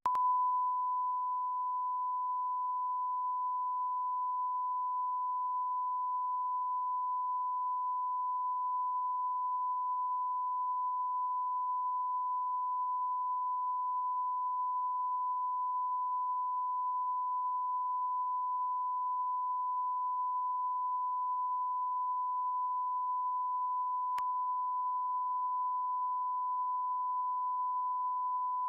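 Steady 1 kHz line-up tone of a bars-and-tone test signal, a single pure unbroken beep that starts abruptly. It marks a satellite feed carrying test signal instead of programme audio.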